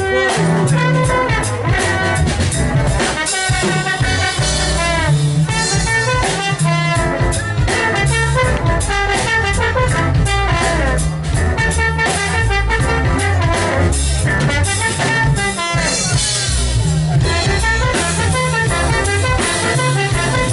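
Live jazz band playing: a trombone over keyboard and drum kit.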